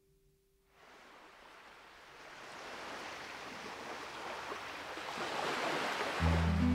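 Ocean surf sound rising out of silence and swelling steadily louder as an intro, with the low bass notes of the song coming in just before the end.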